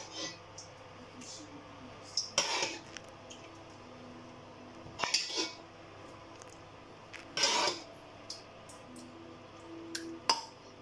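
Serving spoon scraping meat sauce out of a metal pot and clattering against a glass baking dish: five short scrapes, about one every two and a half seconds.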